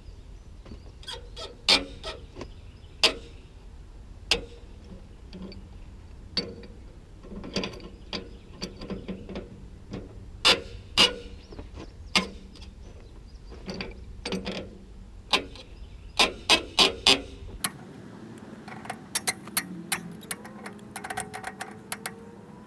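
Irregular sharp metal clanks and ratchet-like clicks of hand tools working on an old disc harrow, with a quick run of knocks near the end.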